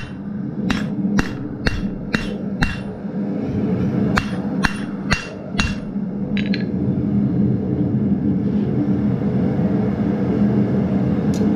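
Hand hammer striking hot steel on an anvil to draw out and thin a forged leaf's stem: two runs of about five quick, ringing blows, about two a second, with a short pause between, stopping about six seconds in. A steady low hum runs underneath throughout.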